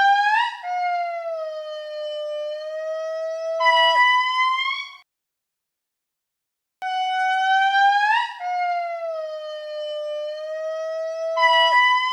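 Indri lemur singing: a long wailing call that holds one steady note, then jumps to a higher note near its end. The call comes twice, identical, with a silence of about two seconds between.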